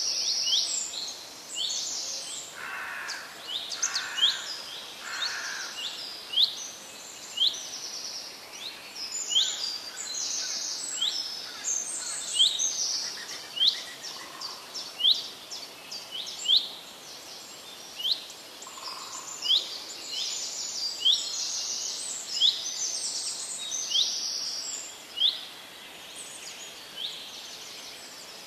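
Birds chirping and singing: many short, high chirps that sweep down in pitch, repeating over and over above a steady outdoor hiss, with a few lower, softer calls mixed in.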